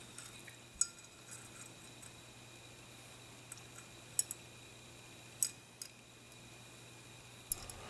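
Steel parts of an H&R Topper M48 shotgun's receiver and locking bolt clicking against each other as they are fitted by hand: about half a dozen faint, sharp clicks over a steady low hum.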